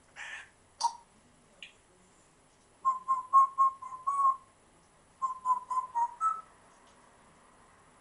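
African grey parrot giving a few short chirps, then whistling two quick runs of short notes, about five or six in each, the last note of the second run a little higher.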